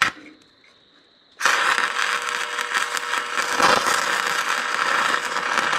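Stick-welding arc from a 6010 electrode run at about 110 amps on a Miller welder, welding the steel loader bucket. A brief tick at the start as the rod is struck, then about a second and a half in the arc catches and crackles steadily and loudly.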